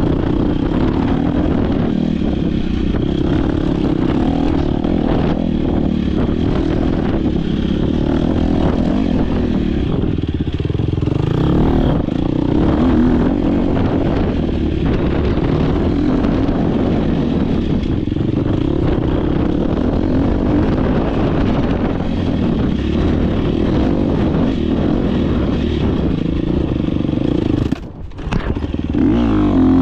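Off-road dirt bike engine running hard under load on a race course, its pitch rising and falling with throttle and gear changes, with chassis and suspension clatter over rough ground. Near the end the engine note briefly drops away, then comes back on the throttle.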